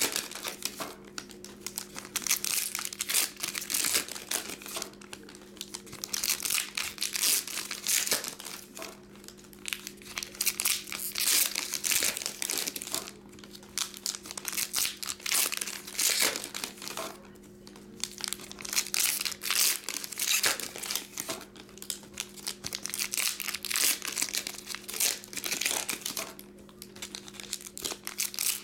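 Foil trading-card pack wrappers being torn open and crinkled by hand, in irregular bursts of crackling one after another. A faint steady hum runs underneath.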